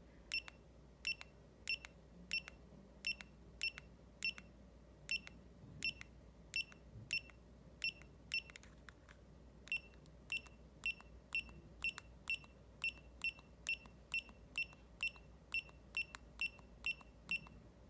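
Short electronic key beeps from a Retekess T128 watch pager as its up/down button is pressed again and again to scroll through a menu. They come about one and a half a second at first and quicken to two or three a second from about ten seconds in.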